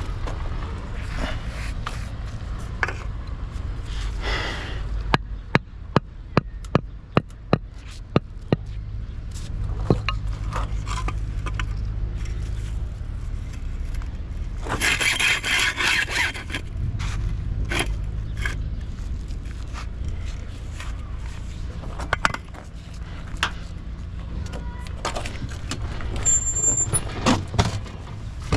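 Steady low machine rumble on a worksite, with a run of about seven sharp knocks, roughly two a second, early on, and a short loud scrape about halfway through.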